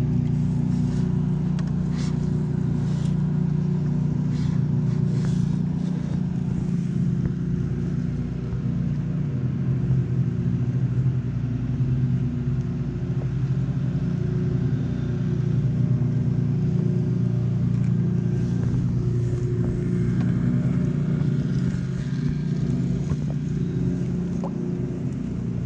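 Steady low engine drone running throughout, with a few small sharp clicks in the first several seconds.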